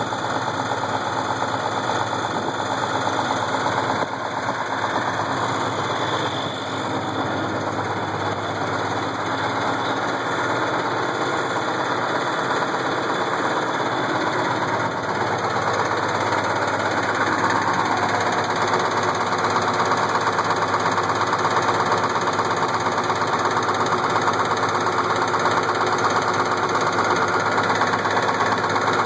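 Cummins 8.3L diesel engine of a Case IH 1680 combine running at a steady speed with a knock, a little louder in the second half. The knock comes from a cracked camshaft gear with missing teeth.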